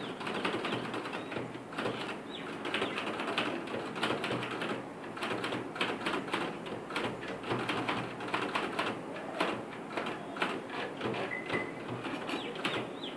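Manual typewriter typing: a dense, irregular run of key strikes clacking one after another.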